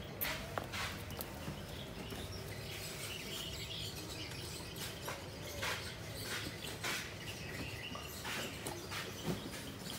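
Background ambience with faint high chirps and scattered light clicks and taps.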